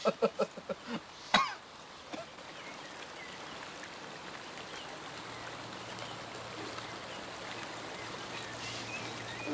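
A man laughing in short rhythmic bursts for about the first second, then a single knock, then a steady soft rushing of flowing water from a garden stream.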